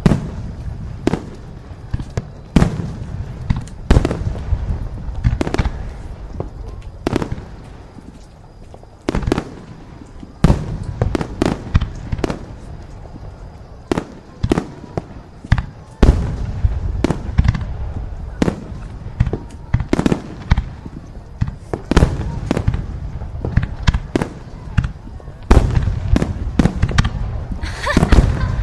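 Fireworks going off: repeated sharp bangs at irregular intervals, over a continuous low rumble.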